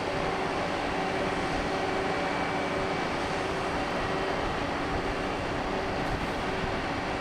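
Steady drone of a large ship's engines and machinery, an even rushing noise with a constant hum held at several pitches.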